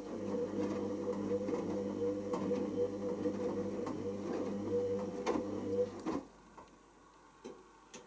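Hoover Optima OPH714D washing machine tumbling its load in the heated main wash: the drum motor hums steadily under irregular clicks and swishes of wet laundry and water. The motor stops about six seconds in and the drum comes to rest, with a couple of faint clicks after.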